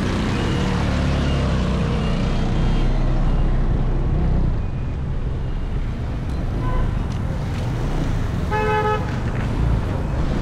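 Steady road-traffic rumble of passing vehicles, with one short vehicle horn honk near the end.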